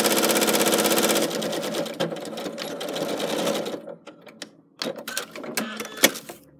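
Domestic electric sewing machine running fast, its needle stitching through layered fabric in a rapid even rhythm, then slowing and stopping about four seconds in. A few light clicks and handling noises follow, with one sharp click near the end.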